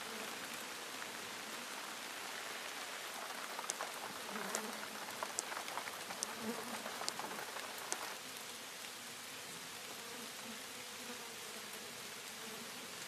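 Steady hiss of rain, with a run of sharp ticks in the middle.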